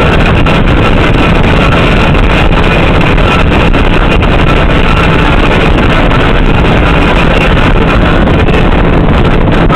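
A vehicle driving steadily at road speed: loud, unbroken road, engine and wind noise, with wind buffeting the microphone.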